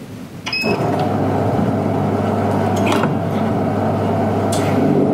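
Twin-flavour (2+1) soft-serve ice cream machine dispensing: a short beep about half a second in, then the machine's motor starts and runs with a steady hum. A couple of light clicks come later.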